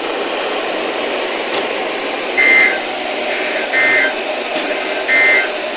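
Weather radio static hiss broken by three short, identical bursts of warbling SAME digital data tone, about 1.4 s apart. Three bursts this short are the end-of-message signal that closes an Emergency Alert System broadcast on NOAA Weather Radio.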